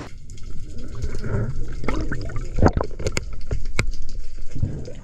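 Water gurgling and bubbling, with scattered sharp pops and clicks through the middle.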